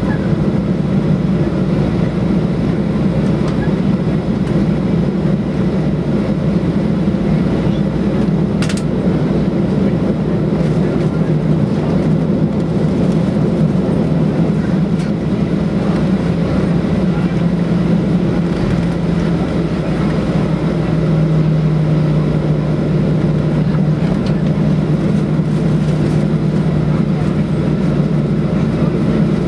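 Cabin noise inside a Boeing 737-800 taxiing, its CFM56-7 engines running at low taxi power: a steady low hum that settles into a slightly lower, steadier drone about two-thirds of the way through. A single click about nine seconds in.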